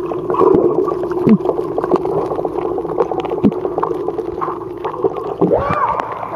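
Swimming pool heard from below the surface through an underwater camera: a steady muffled hum with scattered bubbling clicks and gurgles.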